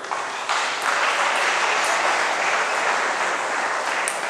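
Spectators applauding after a point, swelling about half a second in and easing off near the end.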